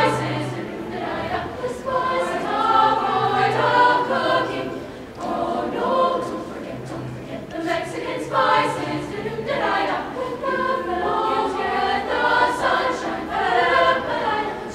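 Women's choir singing a cappella vocal jazz, several voice parts together.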